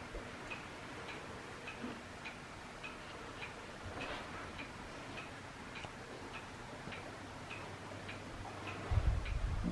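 Steady mechanical ticking, a little under two short ticks a second, over a faint steady background. A brief low rumble comes near the end.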